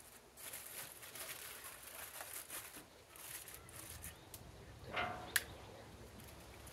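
Aluminium foil crinkling as it is folded and pressed around a rack of beef back ribs on a smoker grate. About five seconds in there is a brief pitched sound, followed by a single sharp click.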